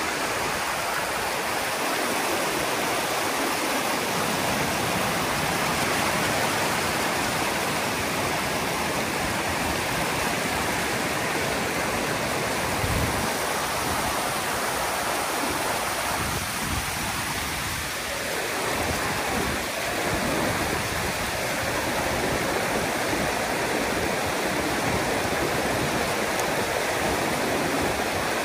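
Fast-flowing river rapids rushing and churning close to the microphone, a steady loud hiss of white water. A few low thumps come about halfway through.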